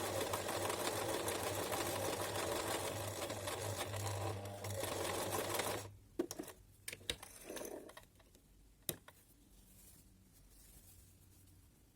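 Domestic sewing machine running steadily while stitching an overcast stitch along a fabric edge with the standard presser foot. It stops suddenly about six seconds in, and a few light clicks and handling sounds follow, with one sharper click near the end.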